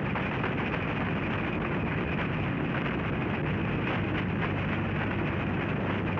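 Cartoon sound effect of a giant snowball tumbling down a snowy mountainside: a loud, steady, rushing rumble with no tune.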